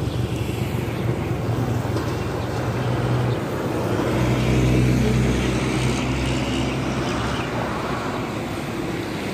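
Highway traffic: engines of passing tricycles, motorcycles and cars run steadily. A larger vehicle's engine rumble swells about four seconds in as it passes close, then eases off.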